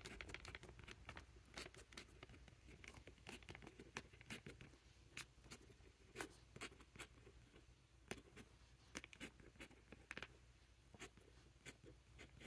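Fountain pen nib scratching and tapping faintly on paper while writing, a run of light, irregular strokes.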